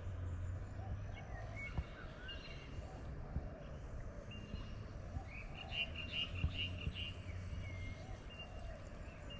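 Outdoor bush ambience: short high-pitched animal chirps and whistled notes, with a quick run of chirps a little past halfway, over a low steady rumble.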